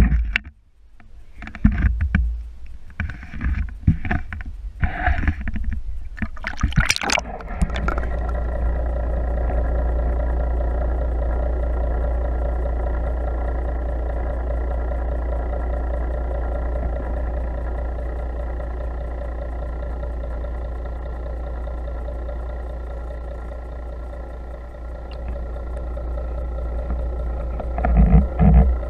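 Water splashing and sloshing against a camera as it is dipped into the sea beside a boat's hull, in irregular bursts. About seven seconds in the camera goes under and a steady underwater drone with several held tones takes over, with a couple of low knocks near the end.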